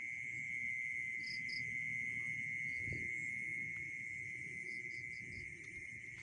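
Night insects, crickets, trilling in a steady, unbroken high-pitched chorus, with a few short higher chirps about a second in and again around five seconds in.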